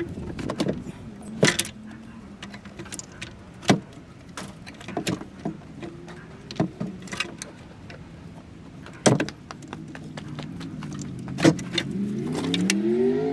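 Scattered sharp metal clicks and clinks of hand tools and engine parts being handled during reassembly after an injector swap. Near the end a pitched hum rises in pitch.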